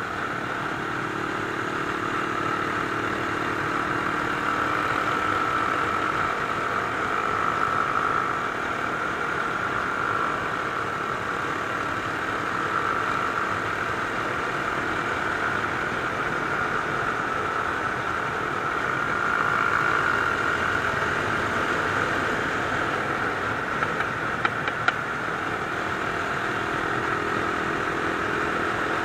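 Mash Cafe Racer 250 motorcycle's single-cylinder engine running steadily at cruising speed in fifth gear, heard from on board. A rush of wind noise runs through it, and the engine note swells slightly twice.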